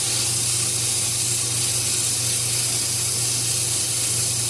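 Wood lathe running with sandpaper held across the spinning wood workpiece: a steady hiss of sanding over a low, even motor hum.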